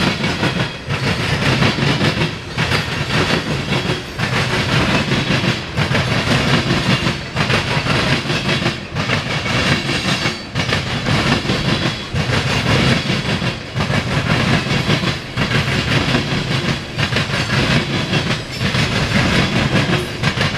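Covered hopper cars of a CSX grain train rolling past, steel wheels clicking over the rail joints in a steady clatter that dips briefly about every second and a half.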